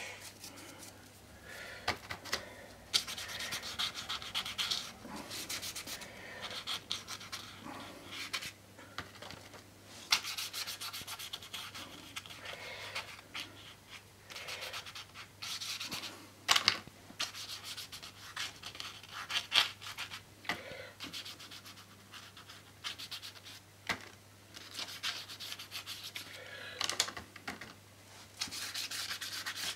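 Brush strokes of thick black paint dragged and scraped over card: repeated dry rubbing and scratching, stroke after stroke, with a few sharp knocks in the middle. A faint steady hum lies underneath.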